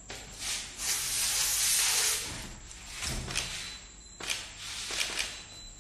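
Aerosol deodorant sprayed from a can in a continuous hiss for about two seconds, laying a line of propellant on a wooden board. About three seconds in comes a soft low whoosh as the line catches fire, followed by a few sharp clicks.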